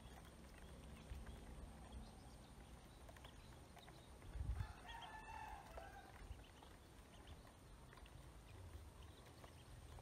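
A chicken calls once near the middle, a short pitched call of about a second, with a dull low thump as it begins. Faint scattered ticks otherwise, close to silence.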